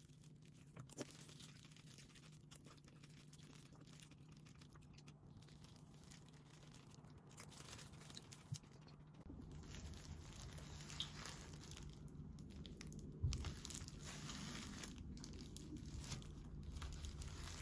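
Faint crinkling of a disposable plastic glove and a metal spoon scraping soft dragon fruit flesh from the skin, with scattered small clicks. A low rumble comes in about halfway, and there is one louder knock about three-quarters of the way in.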